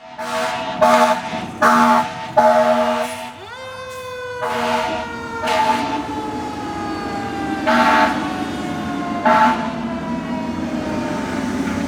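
Fire truck air horns blasting repeatedly in short chord-like bursts, about eight in all. About three and a half seconds in, a siren rises sharply in pitch and then slowly falls under the horn blasts.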